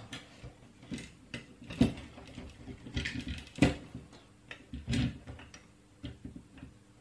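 Plastic clamps of a PCB holder being slid along its metal rail and adjusted by hand, giving scattered clicks and light knocks. The louder knocks come about two, three and a half and five seconds in, as a small circuit board is fitted into the holder.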